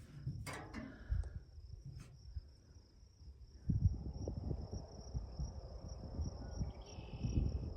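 Insects trilling in one steady high tone, with wind buffeting the microphone in gusts from about halfway through.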